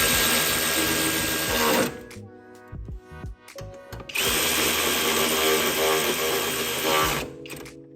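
Handheld power drill running in two bursts, about two seconds and then about three seconds, with a steady whine, over background music.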